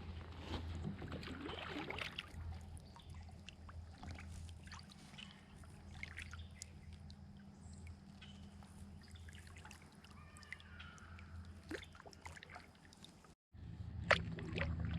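Water trickling and splashing around a kayak as it is paddled, with a steady low hum underneath.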